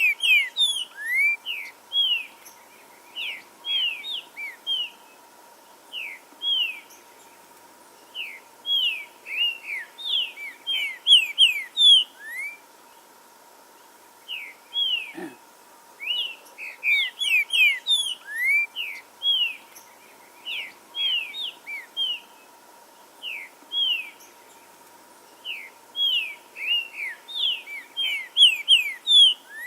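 Green-winged saltator (trinca-ferro) singing: phrases of short, loud slurred whistled notes, repeated again and again with pauses of a second or two between them.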